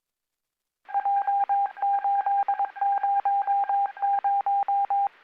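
A single-pitch radio tone beeping on and off over the scanner channel in an irregular run of short and long beeps, like Morse code, starting about a second in and lasting about four seconds.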